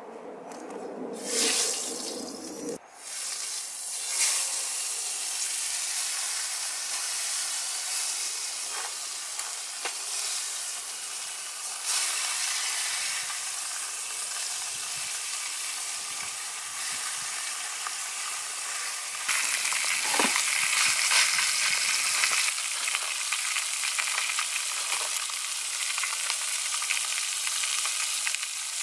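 Masala-coated fish fillets shallow-frying in hot oil in a frying pan, a steady sizzle. It sets in a couple of seconds in and grows louder in steps a few times.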